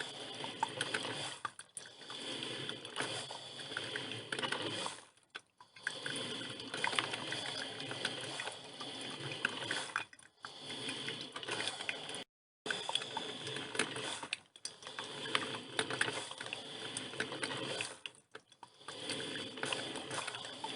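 Drip filter coffee machine brewing: the water heater sputters and crackles as it pushes hot water through, in spells of a few seconds broken by short pauses.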